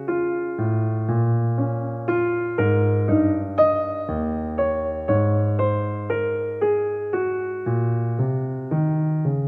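Background music: a gentle solo piano piece, notes and chords struck about twice a second over low bass notes, each fading before the next.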